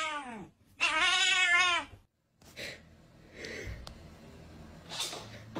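A domestic cat meowing twice: a short meow that falls in pitch at the start, then a longer meow about a second in. After that there is only faint room noise with a soft knock or two.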